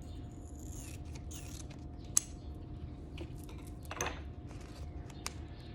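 A packet of dried lavender being handled: soft rustles and scattered small clicks, the sharpest about two seconds in, over a steady low hum.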